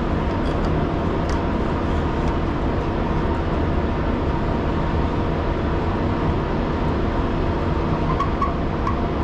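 Steady low mechanical rumble throughout, with a few faint sharp clicks in the first two seconds as a wrench backs off the self-adjusting brake slack adjuster on a trailer axle.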